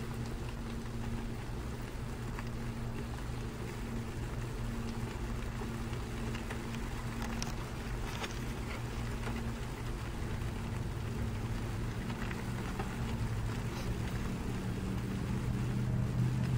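A steady low engine hum, a little louder near the end, with faint scattered ticks.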